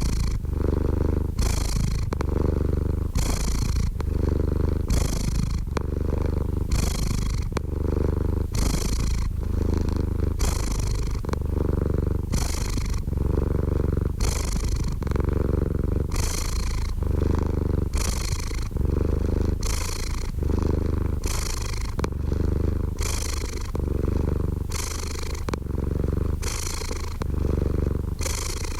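Domestic cat purring steadily close up, a low rumble that swells and eases about once a second as the cat breathes in and out.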